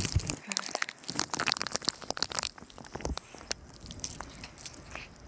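Snow crunching irregularly, a rapid run of small crisp crackles as packed snow is pressed or broken up.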